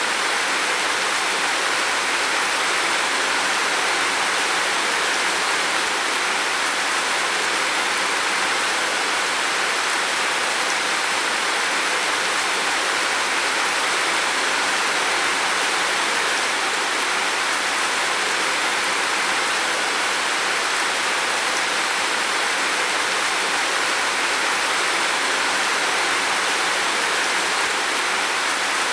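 Heavy rain falling steadily on a roof, an even, unbroken hiss of water.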